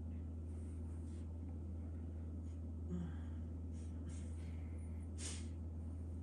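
A steady low hum, with a few faint, brief hissing rustles over it, one about five seconds in.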